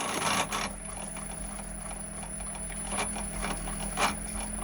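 Delta DP220 drill press running slowly at about 200 RPM on its variable-speed drive, a steady low hum, with three sharp mechanical clicks.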